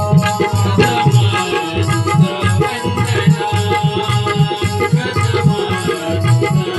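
Instrumental break in a Marathi devotional folk song: repeated drum strokes and jingling rattle-like percussion under steadily held melodic notes.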